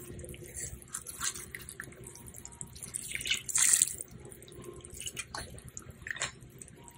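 A spatula stirring a melted-butter sauce in a pan: irregular liquid swishes and light strokes against the pan, with a louder swish about three and a half seconds in.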